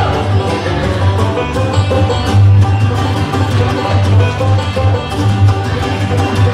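Country music playing loudly, with a steady beat and pulsing bass.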